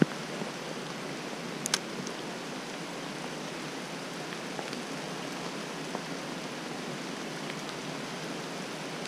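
Heavy downpour: rain falling steadily as an even hiss, with a few sharp clicks in the first two seconds.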